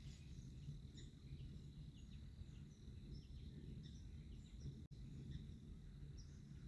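Near-silent outdoor ambience: a low steady rumble with faint, scattered high chirps and ticks, and a momentary dropout about five seconds in.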